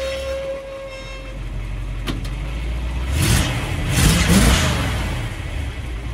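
1971 Chevrolet C30 ramp truck's engine running as the truck rolls backward off a trailer's ramps. A high steady squeal stops about a second and a half in, and a sharp clunk comes about two seconds in. The engine gets louder with revs between about three and four and a half seconds in.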